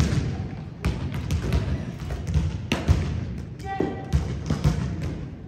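Volleyballs being spiked and bouncing on the floor: a string of sharp thuds at irregular intervals, loudest about three seconds in.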